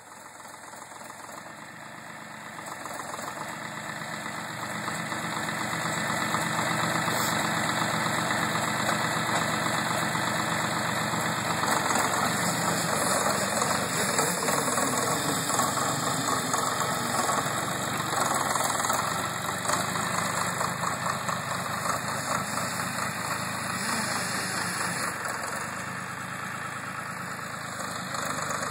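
Jinma SL3105T three-cylinder diesel engine of a homemade articulated loader tractor, running steadily as the machine drives. The engine sound grows louder over the first several seconds, then holds steady.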